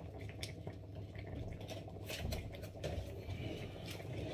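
Cooking sounds: light, irregular clicks and wet ticks over a steady low hum, while cornflour is stirred into cold milk beside a simmering pan of thick sauce.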